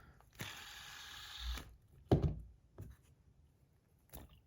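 Small hard objects handled on a table: a scraping slide of about a second near the start, then a sharp thump about two seconds in and a couple of faint clicks.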